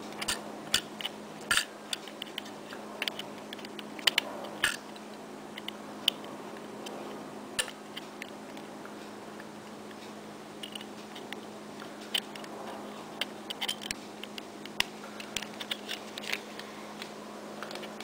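Irregular small clicks and taps, a couple of dozen of them, scattered unevenly over a steady low hum, with no ringing from the phone's bell gongs.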